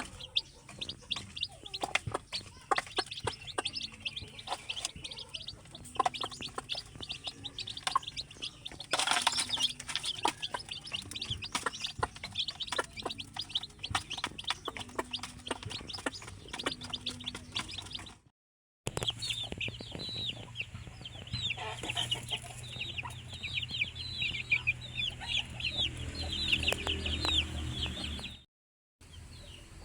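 Chickens clucking amid many rapid high chirps, with scattered sharp clicks. A steady low hum joins a little past the middle, and the sound drops out completely twice for about half a second.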